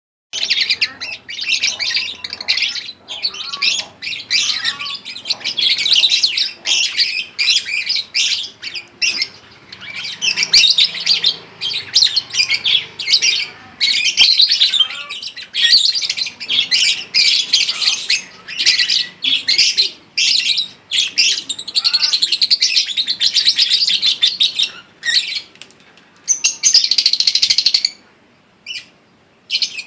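Young lovebird, about two months and three weeks old, chattering in rapid, high-pitched twittering bursts separated by short gaps: a juvenile practising its song. The chatter stops briefly near the end.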